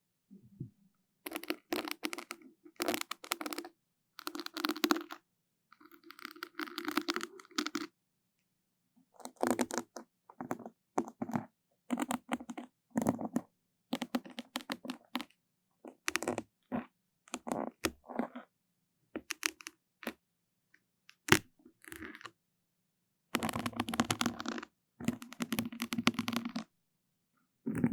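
Close-miked ASMR trigger sounds: irregular crackling and rubbing bursts, each a fraction of a second to about a second and a half long, with short silent gaps between them.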